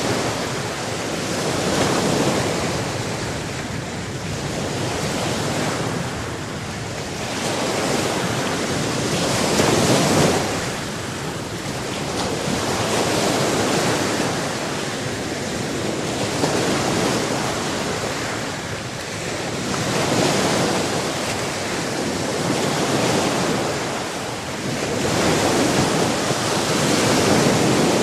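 Ocean waves breaking on a shore, a continuous rush of surf that swells and ebbs as each wave comes in, about every three to four seconds.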